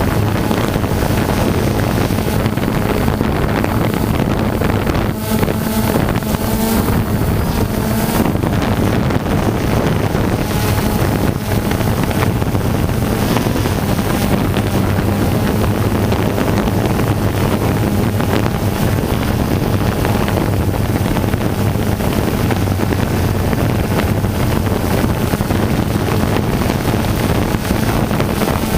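Steady engine or motor hum from the aircraft carrying the camera, with wind rushing over the microphone. Between about five and eight seconds in, the hum picks up a few extra higher tones.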